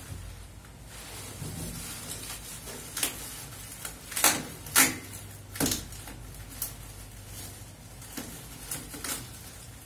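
Bubble wrap and cardboard being handled during unpacking: a string of short sharp crinkles and scrapes, the loudest two about four and five seconds in, over a low steady hum.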